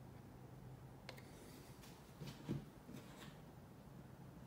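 Near silence with faint handling sounds: a sharp click about a second in and a few soft knocks about two and a half seconds in, as a hand moves on and off a chronograph.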